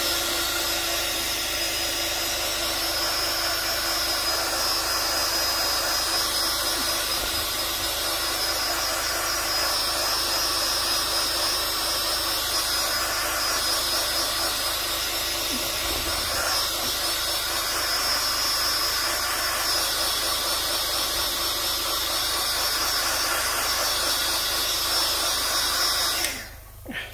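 Handheld heat gun running steadily, a rush of blown air with a high whine from its fan motor, switched off near the end.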